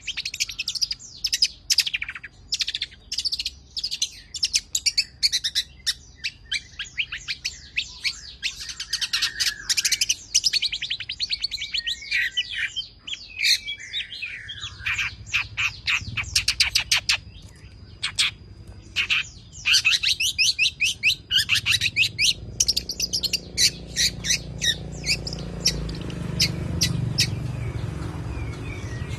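Long-tailed shrike (cendet) singing: sharp high chirps and fast rattling runs of rapid-fire notes. A low rumble builds under the song over the last several seconds.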